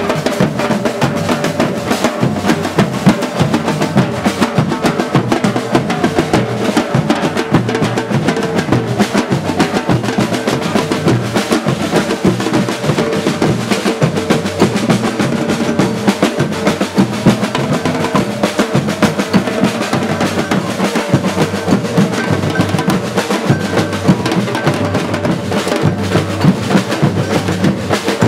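A batucada drum group playing: many drums, snares and bass drums together, in a dense, fast, unbroken rhythm.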